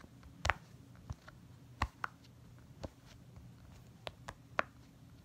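Heart-shaped silicone pop-it fidget toy, its bubbles pressed on the quiet side one after another: soft, sharp pops at an uneven pace, about two a second.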